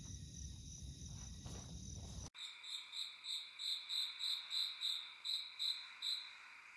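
Night chorus of crickets, a steady high trill. For the first two seconds or so a low rumbling noise lies under it. Then, after a sudden cut, a loud chirping call repeats about three times a second for roughly four seconds before stopping.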